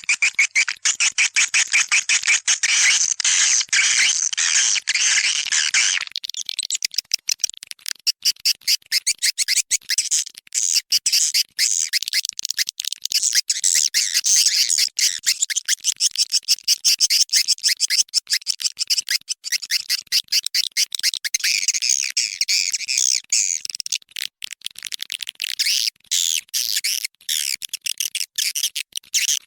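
Swiftlet calling sound: dense, rapid high-pitched chirping and twittering of swiftlets, a lure track played to draw edible-nest swiftlets into a bird house. About six seconds in the lower, fuller layer drops out, leaving thinner, rapid high chirps.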